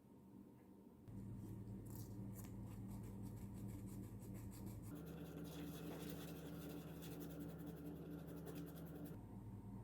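800-grit sandpaper rubbing on a part of a mini grinder's power switch, cleaning the switch. A few separate scratches come first, then a run of fast back-and-forth sanding strokes that stops suddenly near the end, over a steady low hum.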